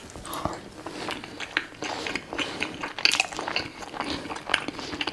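Close-miked chewing and mouth sounds of a man eating a mouthful of burger patty and rice, with many small irregular clicks and smacks.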